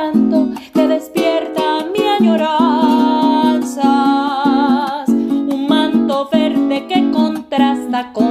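A woman singing a Spanish-language llanero song over a small guitar-like string instrument strummed in a quick, steady rhythm. In the middle she holds long notes with vibrato.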